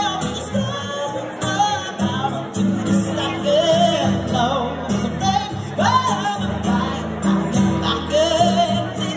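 A woman singing a slow song live with long held, wavering notes, accompanying herself on a strummed acoustic guitar.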